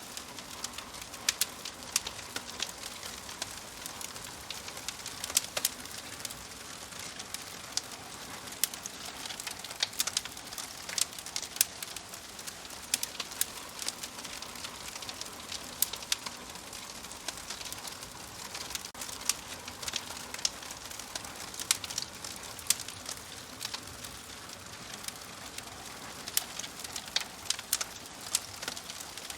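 Wood fire crackling in a fireplace: a soft steady hiss with frequent, irregular sharp pops and snaps.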